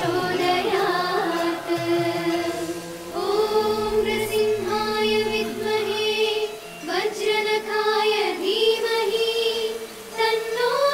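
Background music in which a choir sings long held notes, moving from one note to the next, with short breaks between phrases.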